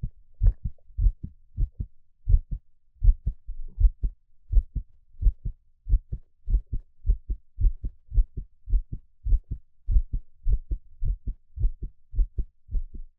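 A man's heartbeat heard close up: steady lub-dub pairs of soft low thuds, a little over one beat a second.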